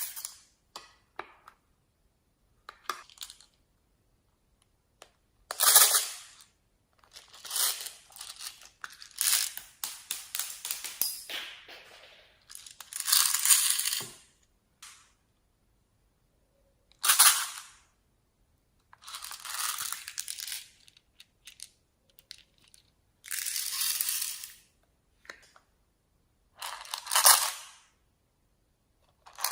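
Slime being squeezed and poked by hand, in a series of separate crackly, squishy bursts, some brief and some lasting a second or two, with silent gaps between them.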